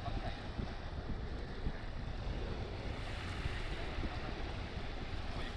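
Wind buffeting the microphone, over the steady wash of small waves breaking on a sandy shore.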